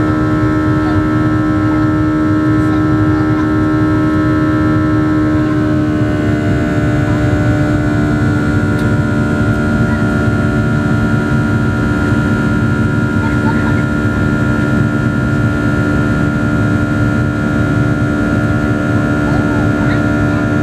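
Cabin noise of a Boeing 737-800 climbing after takeoff: its CFM56-7B turbofan engines run at climb power, a steady rumble overlaid with several held whining tones. About six seconds in, the whining tones step down slightly in pitch.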